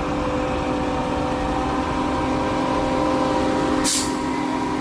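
Sany 38-metre concrete boom pump truck running steadily, its engine and pumping hydraulics holding one even pitch, with a short hiss about four seconds in.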